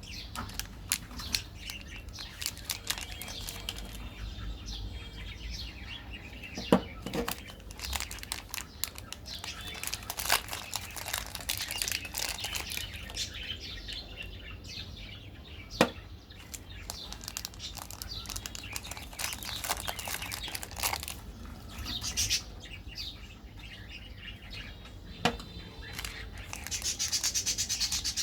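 Close-miked crinkling and tearing of plastic candy packaging, with dense small clicks and a few sharp snaps that stand out.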